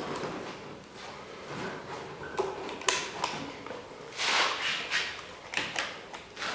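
Rummaging through a backpack: scattered rustles and a few light clicks of gear being handled, with a longer rustle about four seconds in.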